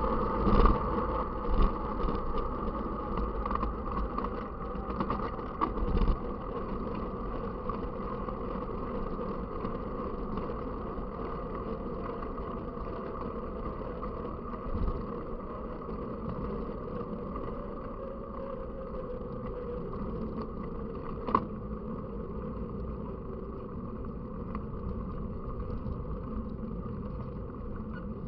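Steady drone and rush of a vehicle in motion, with a few sharp knocks and rattles in the first seconds and another single knock near the end.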